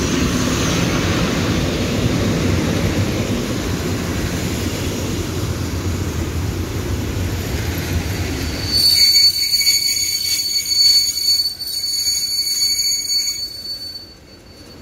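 Locomotive-hauled passenger train with a 303E electric locomotive pulling into a platform: a heavy rumble as the locomotive and coaches roll past. About nine seconds in, the wheels start squealing with several high steady tones as the train brakes to a stop, and the sound dies down near the end.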